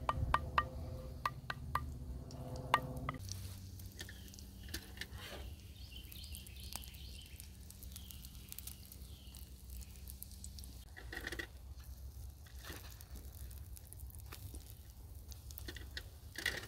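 A spoon knocking and scraping pancake batter out of an enamelware bowl: a run of knocks about two a second, each with a short ring. About three seconds in this gives way to a faint crackle of pancakes frying in a cast iron skillet over a small twig fire.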